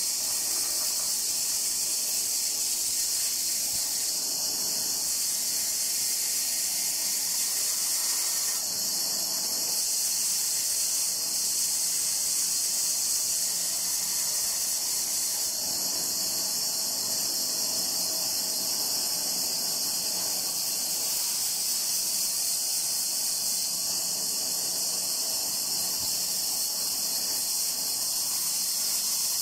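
Band saw running, its blade cutting through a block of rosewood: a steady high hiss.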